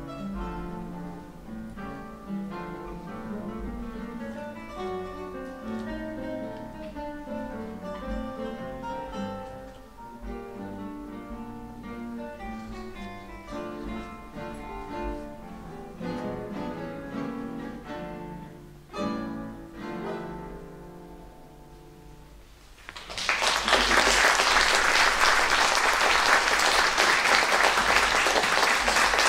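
Quartet of classical guitars playing an ensemble piece, ending on a final chord about 19 seconds in that rings and fades away. Audience applause then breaks out about 23 seconds in, louder than the music.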